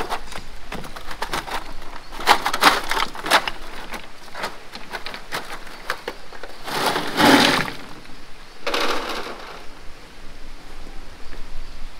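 Stones clacking and clattering as rocks are loaded into a wheelbarrow and tipped onto a rock-built road fill: a run of sharp knocks in the first few seconds, then two longer rattling pours of tumbling stone about seven and nine seconds in.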